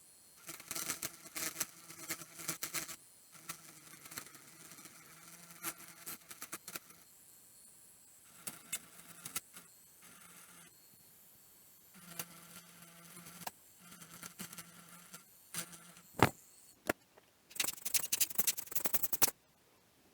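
Small hand tools working on a circuit board at a soldering bench: bouts of scraping and light clicking as epoxy is cleared from connector pins, a sharp click near the end, then a dense burst of rapid crackling.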